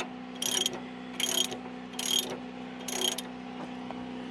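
A ratchet clicking in four short strokes, about one every 0.8 s, as an adjuster bolt on the sawmill head is turned to level the blade.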